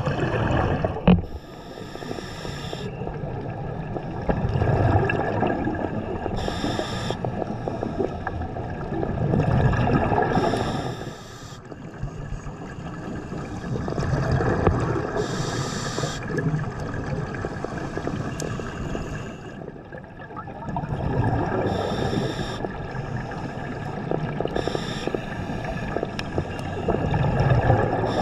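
Scuba diver breathing through a regulator underwater: a short hiss of inhalation followed by a gush of exhaled bubbles, repeating about every five to six seconds, over a faint steady hum. A single sharp knock about a second in.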